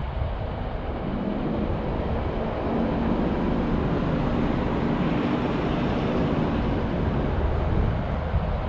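Steady low rumble of vehicle engines and traffic in a parking lot, with wind buffeting the microphone.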